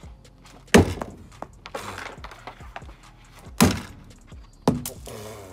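Hockey pucks being shot with a stick and striking the rear of a Honda Civic: three sharp whacks, the loudest about a second in, another two near the end.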